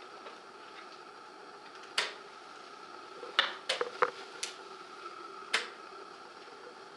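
Sharp wooden clicks of a fast chess game: pieces set down on the board and the chess clock pressed, about eight in all, with a quick cluster of them in the middle. A faint steady hum runs underneath.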